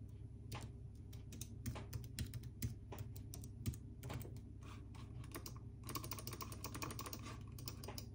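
Typing on an Apple wireless keyboard: irregular light key clicks, with a quick run of keystrokes about six seconds in.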